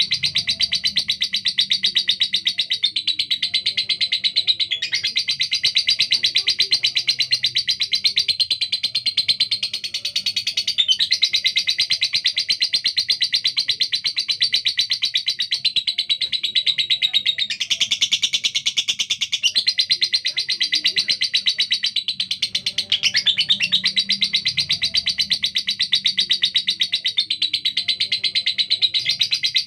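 Female lovebird singing a long, unbroken, rapid-fire chatter in a harsh, rough voice, the notes coming very fast and barely pausing.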